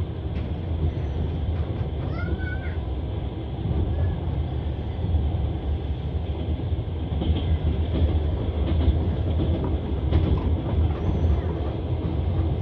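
Passenger train running on the Trans-Siberian line, heard from inside the carriage: a steady rumble and clatter of wheels on rails. A brief high squeak sounds about two seconds in.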